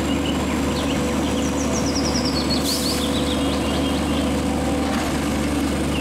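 Large truck engine idling steadily, with birds chirping in the background.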